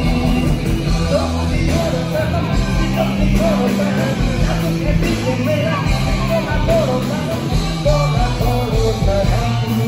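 Loud live band music with a singer's voice carrying the melody over steady bass notes, picked up from within the crowd at the front of the stage.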